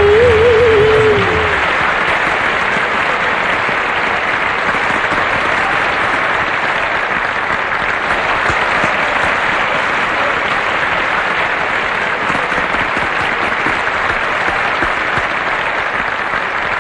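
Steady applause from a crowd, many hands clapping at once. It comes in as a held sung note and its backing music die away in the first second and a half.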